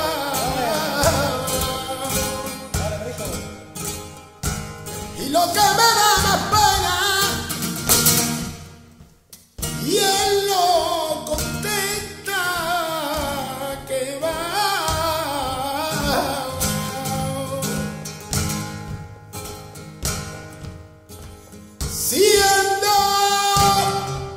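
Flamenco cante por granaínas: a male voice sings long, wavering, ornamented phrases over a flamenco guitar's strummed and plucked chords. The singing breaks off briefly about nine seconds in, then comes back.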